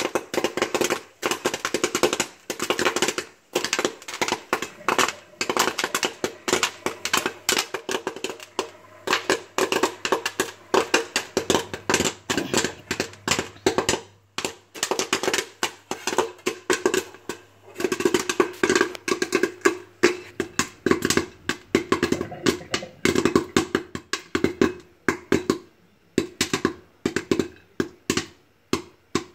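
Popcorn popping in a lidded stainless-steel pot: rapid, irregular pops and ticks against the pot and lid, thinning out in the last few seconds as the batch finishes.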